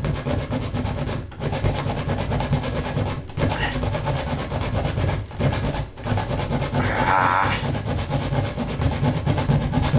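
Hacksaw blade, held by hand, sawing back and forth through a steel nail that fastens a plastic electrical box to a wall stud: a steady rasping with a few brief pauses between runs of strokes.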